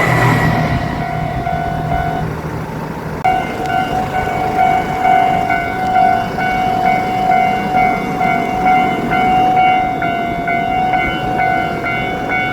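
Japanese level-crossing warning bell ringing in a quick, even clang, with the Tosa Kuroshio Railway 9640 diesel railcar's engine and wheel noise fading away in the first couple of seconds as the train moves off past the crossing.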